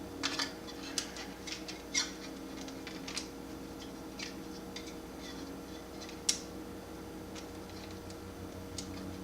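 Small sharp clicks and taps from laptop parts being handled during a CPU fan swap, mostly in the first few seconds with one more about six seconds in, over a faint steady hum.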